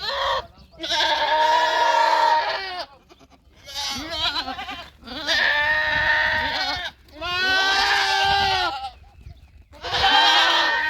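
Goats bleating: a run of long, quavering bleats, each lasting one to two seconds, with short pauses between them.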